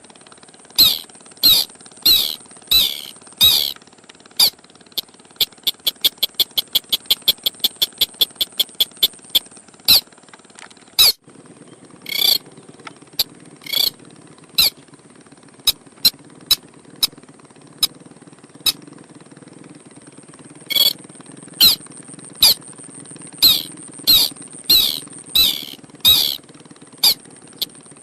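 Lure recording of a burung sintar (crake) calling: short, sharp, squeaky notes repeated about once or twice a second, breaking twice into quicker runs of about four to five notes a second. A steady high hiss runs underneath.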